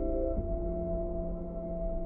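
Ambient background music of sustained held tones, moving to a new chord about half a second in.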